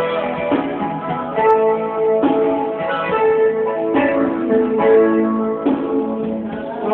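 Live instrumental music led by plucked guitar, with notes and chords changing about every half second.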